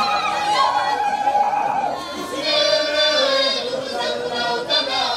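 A group of voices singing long held notes in chorus, unaccompanied, the sound of the troupe's vocal part.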